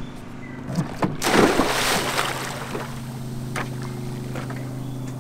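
Water splashing as a person wades into shallow water, loudest about a second and a half in, over a steady low motor hum.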